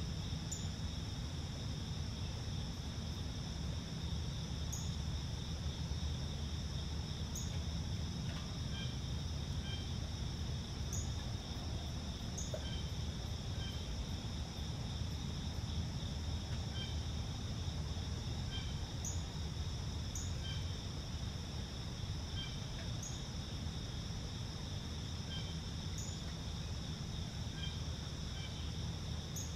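Steady dawn chorus of crickets and other insects, a continuous high trill, over a low steady rumble. Short, faint high chirps come and go every few seconds.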